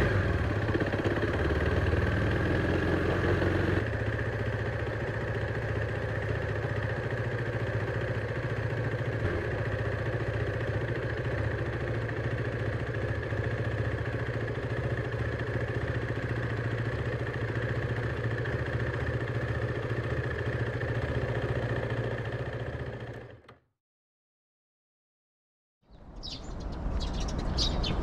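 KTM Duke 390 single-cylinder engine running steadily at low revs through its stock exhaust, easing slightly a few seconds in. Near the end it cuts to silence, and then a series of high chirps begins.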